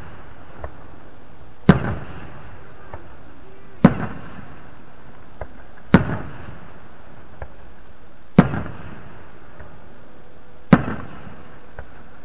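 Aerial fireworks shells bursting overhead: five sharp bangs about two seconds apart, each followed by a short rumbling echo, with fainter pops between them.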